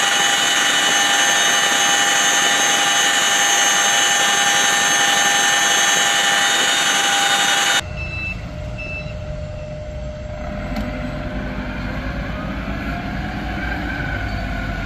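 Loud, steady cabin noise inside a CH-47 Chinook helicopter in flight: turbine and gearbox whines over a constant rush. About eight seconds in it cuts to a propane-powered CAT forklift's engine running with a low rumble, its engine note rising slowly near the end.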